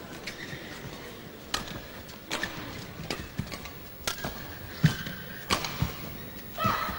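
Badminton rally: sharp cracks of rackets striking the shuttlecock at irregular intervals, with shoes squeaking on the court. The crowd noise swells near the end.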